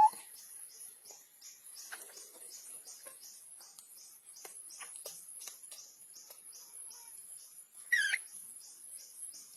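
A baby monkey gives one short, high squeal that sweeps up in pitch about eight seconds in. Behind it runs a steady high chirping, about two or three chirps a second, with faint scattered clicks.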